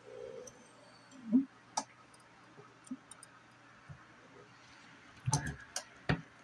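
Handling noise at a heat press: scattered clicks and a few knocks as the phone and the shirt are moved about, the loudest knock about a second and a half in and a cluster of knocks near the end, over a faint low steady hum.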